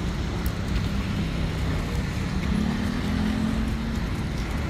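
Steady city street traffic noise: a continuous rumble of car engines, with an engine hum that rises slightly about halfway through.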